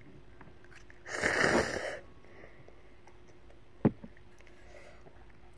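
Noodles slurped in one long noisy pull lasting about a second, followed a couple of seconds later by a single sharp click.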